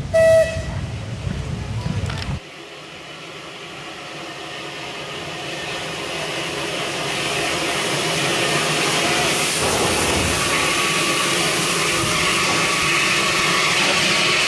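A brief, loud whistle blast. Then an approaching steam train: a rumble and hiss that grows steadily louder as the locomotive nears.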